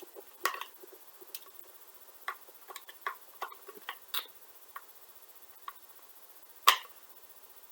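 Irregular small clicks and taps of a screwdriver working the small screws inside a plastic gel blaster's body, with one sharper click near the end.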